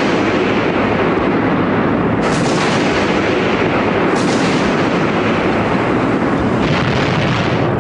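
Tank cannon fire and explosions over a continuous battle rumble, with three sharp blasts about two seconds in, about four seconds in, and again near the end.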